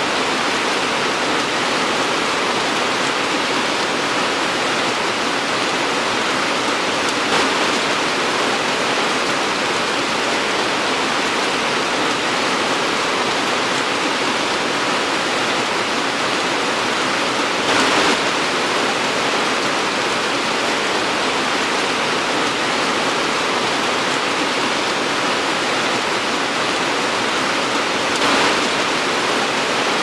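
Steady heavy rain falling, an even hiss with three brief louder swells.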